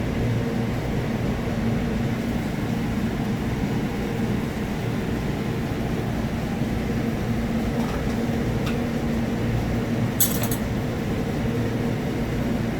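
Steady hum of a ventilation fan, with a faint click a little before nine seconds and a short rattle of clinks from glass or dishware about ten seconds in.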